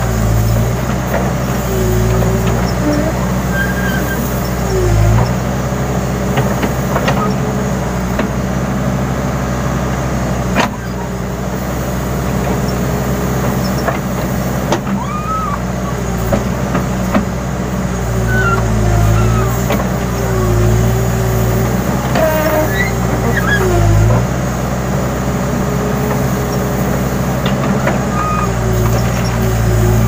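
Case N Series backhoe loader's diesel engine running as the backhoe arm digs, the engine note swelling in repeated pulses as the hydraulics take load. There are brief squeals throughout and one sharp knock about ten seconds in.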